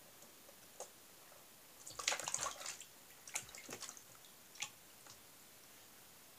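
Water splashing and dripping in a plastic tub as a cat paws at small crucian carp. There is a burst of splashing about two seconds in, a second shorter flurry a second later, and one last small splash near the end.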